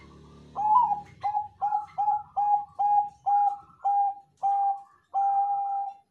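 Zebra dove (perkutut Bangkok) singing its cooing song: a run of about nine short, clear coos at one pitch, spacing out slightly toward the end, closed by one long held coo.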